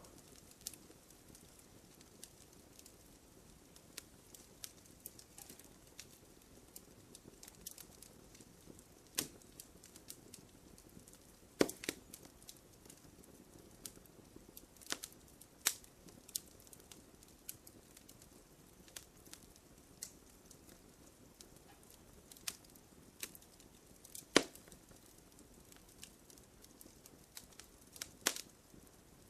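Wood fire crackling gently: a soft hiss under scattered small snaps, with a few louder pops every few seconds.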